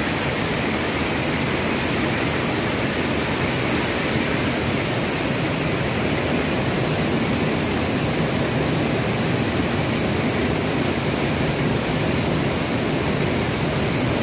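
Waterfall: a steady rush of falling water, even and unchanging throughout.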